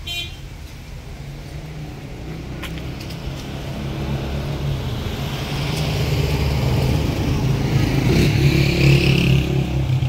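A car engine running, growing steadily louder over several seconds.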